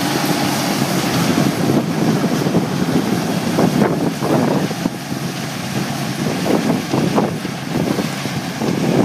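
Combine harvester running as it harvests corn, moving away, heard under heavy wind buffeting on the microphone.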